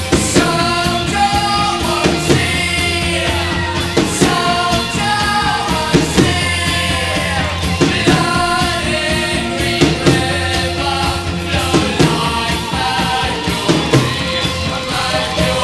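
Post-punk rock song: a sung lead vocal over bass, guitar and drums, with a strong drum hit about every two seconds.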